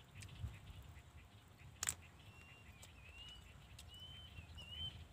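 A small bird calling: a run of short, high chirps, repeating roughly every half second from about two seconds in, over a faint low rumble. One sharp click just before the chirps begin.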